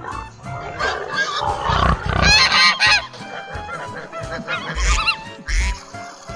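Domestic geese honking repeatedly, a series of loud calls that peak about two seconds in and again near the end.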